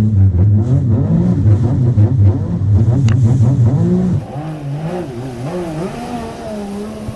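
Yamaha EXR jet ski engine running under throttle, its pitch rising and falling as the rider works the throttle. It drops to a noticeably quieter, lower level about four seconds in.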